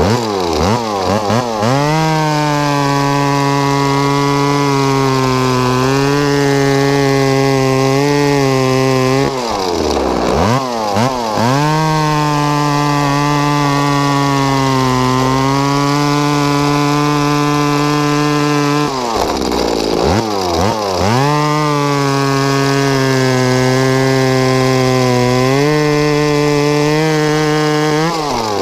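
A two-stroke gas chainsaw runs at full throttle, bucking logs in long cuts. Its pitch sags a little under load. About a third and two thirds of the way through, the engine drops off the throttle briefly and revs back up into the next cut.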